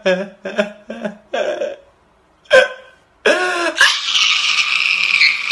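A man's voice in short rhythmic bursts, then, after a pause and one sharp cry, a loud drawn-out crying wail that runs through the last two seconds.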